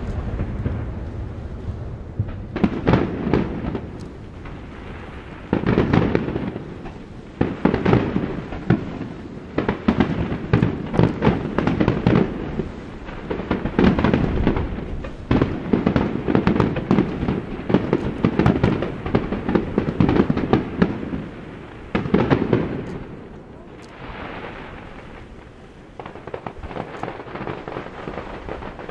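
Fireworks display: a starmine barrage of aerial shells bursting in rapid volleys of bangs and crackles, in bursts of several seconds with short lulls between them. Near the end the bangs give way to a steadier, quieter hiss.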